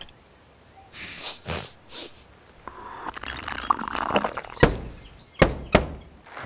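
Tea slurped noisily from a porcelain cup: three short noisy draws about a second in, a longer slurp, then three sharp gulps near the end.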